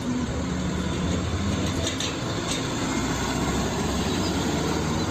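Small Hino fuel tanker truck driving past on a road: steady engine running under a wash of road and traffic noise.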